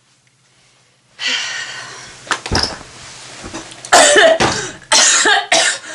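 A person coughing and clearing their throat in several loud bursts, beginning after about a second of near silence and growing louder toward the end.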